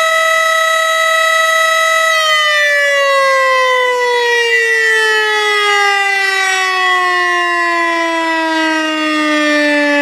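Civil defense tornado siren holding a steady tone, then about two seconds in starting to wind down, its pitch falling slowly and evenly.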